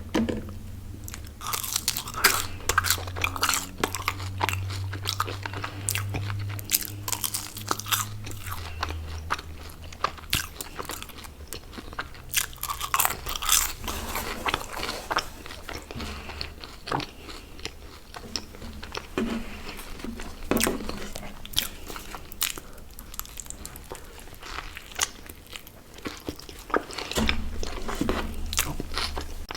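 Close-miked eating: someone biting and chewing crunchy fast food, with many sharp crunches and wet mouth sounds in quick irregular succession.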